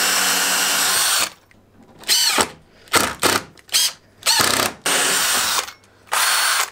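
Makita cordless drill running steadily as it pre-drills a hole in plywood, stopping about a second in. Then a cordless impact driver drives screws into the plywood in about seven short bursts.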